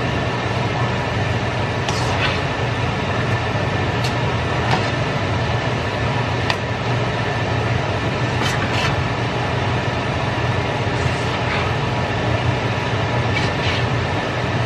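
Stir-frying pasta in a wok on a gas stove: a steady rushing noise with a low hum, broken by sharp clicks of a metal spatula and tongs against the pan, often in pairs, every couple of seconds.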